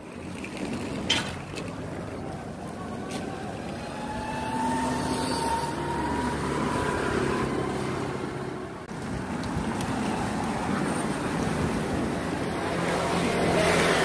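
Street traffic: steady noise of cars running past, with a sharp click about a second in and a faint rising whine in the middle.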